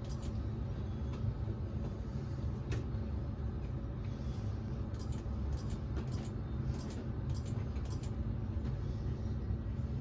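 A series of short, high ticks a second or so apart as keys are pressed on a Geek smart deadbolt lock's keypad, over a steady low background rumble.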